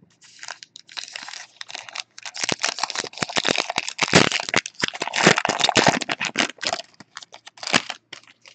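Plastic wrapper of a 2018 Panini Unparalleled football card pack being torn open and crinkled by hand: a dense run of crackling, loudest in the middle, thinning to a few crackles near the end.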